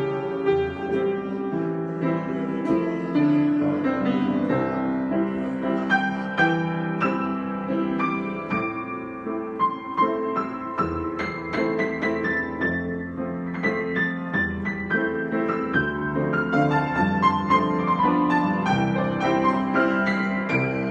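Piano improvisation: single notes and chords played in a continuous flow.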